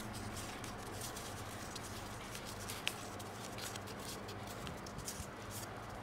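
Origami paper rustling and crinkling faintly as fingers press and open the folded petals of a paper flower, with scattered small clicks and one sharper crackle about three seconds in.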